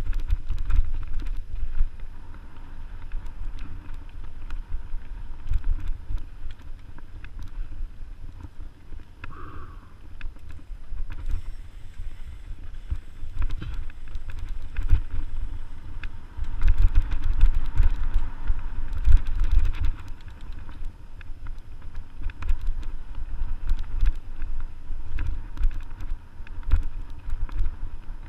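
Mountain bike riding a dirt singletrack, heard from a camera on the bike or rider: wind buffeting the microphone over the bike's rattles and knocks on the rough trail, loudest from about seventeen to twenty seconds in, with a brief squeak about nine seconds in.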